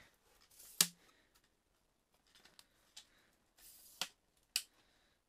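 Ice fishing rods and gear being handled: a few sharp clicks and knocks, the loudest about a second in, with brief rustling between them.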